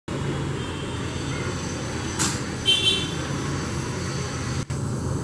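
Steady low rumble of city road traffic. A brief hiss comes about two seconds in, then a short high-pitched tone just before three seconds.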